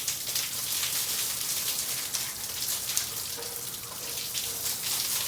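Garden hose spraying water onto the house, a steady hiss broken by irregular splashes.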